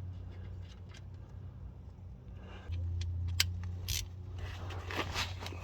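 Hand tools working at a truck's oil drain plug: two sharp metal clinks in the second half, then some scraping, over a steady low hum that grows louder a little before the middle.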